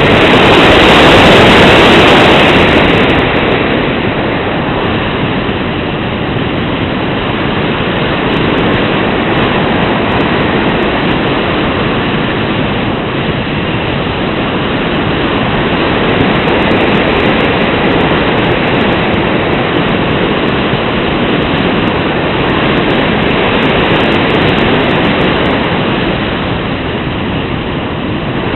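Wind buffeting the microphone: a steady, loud rushing noise with no pitch, loudest in the first couple of seconds.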